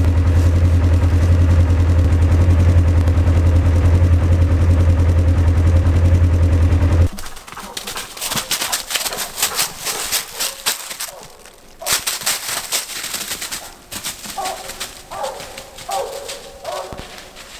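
A loud steady low drone, which stops abruptly about seven seconds in. Then footsteps crunch through dry leaves and brush, and near the end a hound barks repeatedly.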